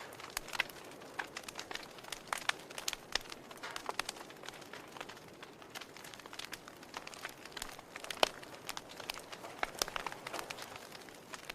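Wood fire crackling in a fireplace: irregular sharp pops and snaps over a soft hiss, the loudest snap about eight seconds in.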